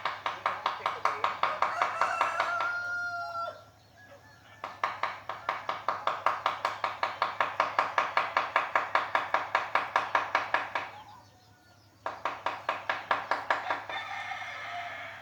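Rapid, steady taps of a mallet driving a carving chisel into teak wood, in three long runs with brief pauses between them. A rooster crows about two seconds in.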